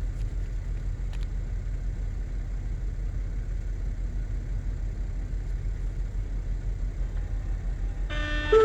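A steady low rumble, then near the end the lahar warning siren starts its test chime: loud held electronic tones at several pitches that come in within a second of each other.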